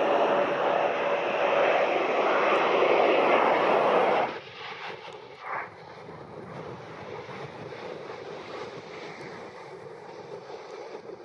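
Jet airliner engines, loud and steady for about four seconds, then dropping abruptly to a much quieter, steady distant engine noise.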